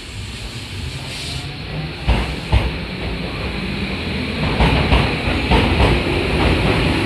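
Japanese electric commuter train pulling away, growing steadily louder, its wheels knocking over rail joints from about two seconds in, the knocks coming closer together toward the end.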